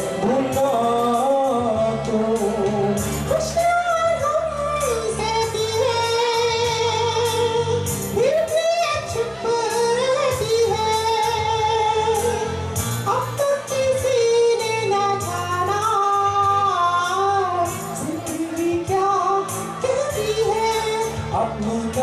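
A man singing a Hindi song live into a handheld microphone through a PA system, over backing music with a steady beat. The sung line is held and wavering, with long notes.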